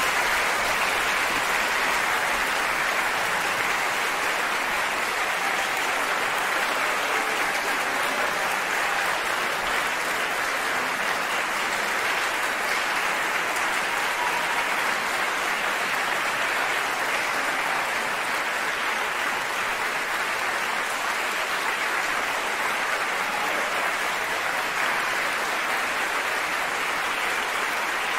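Theatre audience applauding steadily, a long ovation of massed hand-clapping that keeps an even level throughout.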